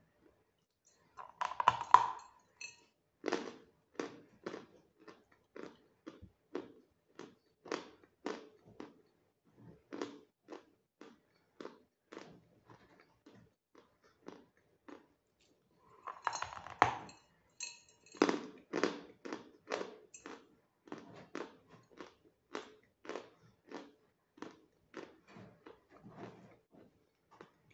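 Bites into a hard lump of Phoenix natural edible chalk, the crunch ringing and loud, about two seconds in and again about sixteen seconds in. Each bite is followed by steady crunchy chewing of the chalk, about two chews a second, slowly growing quieter.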